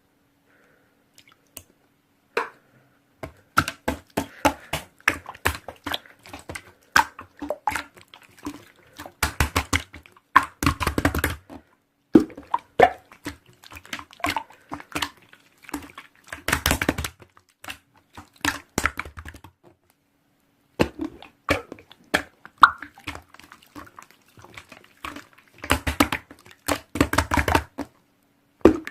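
Slime being squeezed and pressed by hand, making rapid runs of sticky clicks and small air-bubble pops, with heavier squelching bursts every few seconds and a brief pause about two-thirds of the way through.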